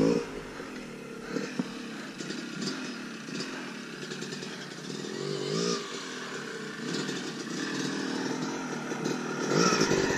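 Two-stroke dirt bike engine running, with one rising rev about halfway through. It grows louder near the end as the bike comes closer.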